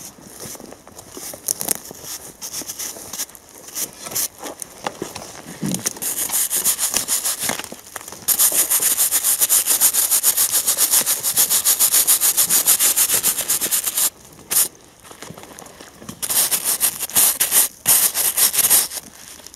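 A stiff-bristled brush scrubbing caked soil and rust off a corroded, dug-up K98 rifle grenade launcher cup (Schiessbecher). The strokes are fast, several a second, and start about a third of the way in after lighter, irregular rustling. They stop briefly and resume near the end.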